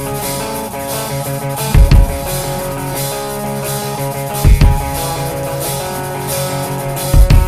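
Background music: a rock-style track with guitar and drums, with a pair of heavy bass-drum hits about every two and a half seconds.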